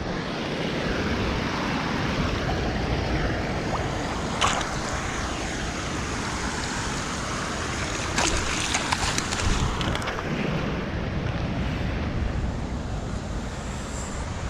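Steady rushing of floodwater through a rapid, with wind buffeting the microphone. A brief knock about four and a half seconds in and a cluster of short clicks around eight to nine seconds in.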